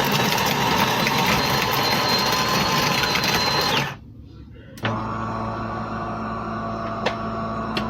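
The De'Longhi Rivelia's built-in burr grinder grinding coffee beans, a loud whirring grind with a steady whine that stops suddenly about four seconds in. After a short pause a steadier, quieter motor hum starts as the machine moves on toward brewing.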